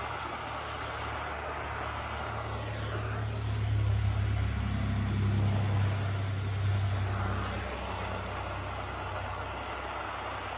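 Steady hiss of a Bernzomatic MAP-gas hand torch burning as it chars wet paint and plywood, the heat making the paint bubble. A low rumble swells up a couple of seconds in, holds for a few seconds and fades again.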